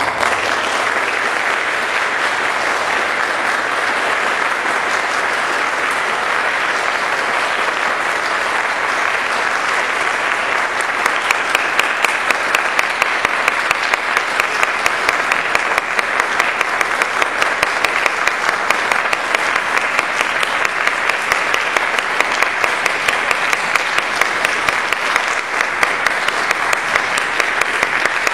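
Concert-hall audience applauding steadily at the end of a string orchestra piece. About halfway through, the clapping falls into a steady shared beat.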